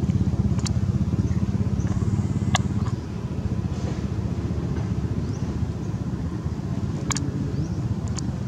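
A steady low engine rumble with a fine, regular flutter that eases a little about three seconds in, with a few short, high bird chirps and clicks over it.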